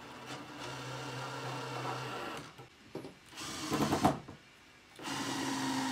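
Cordless drill driving screws with washers through a steel frame's feet into wooden blocks: the motor runs steadily for about two seconds, there is a short louder noise about four seconds in, and the motor runs again at a higher pitch near the end.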